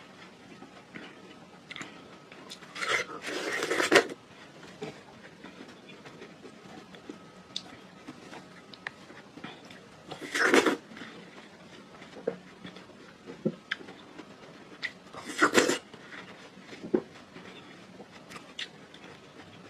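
Watermelon being bitten and chewed: three loud wet crunching bites, one a few seconds in, one about halfway and one past two-thirds through, with soft chewing clicks between them.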